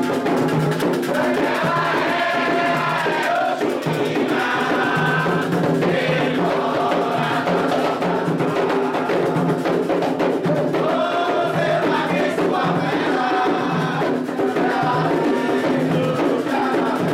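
Candomblé ritual music for Oxum: atabaque hand drums play a steady rhythm under a group singing call-and-response chant phrases.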